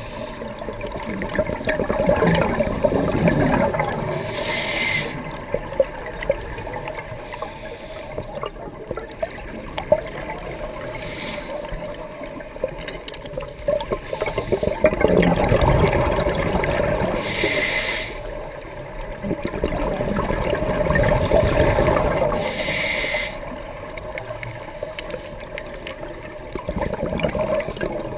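Scuba diver breathing through a regulator underwater: exhaled bubbles gurgle in rumbling bursts every several seconds, with short hisses between them.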